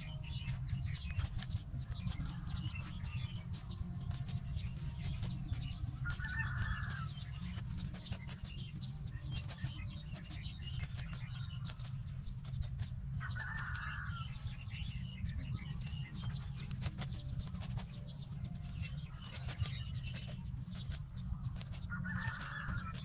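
Grass being cut and pulled by hand, with scattered rustling and snipping over a steady low rumble. A bird calls briefly about every seven seconds.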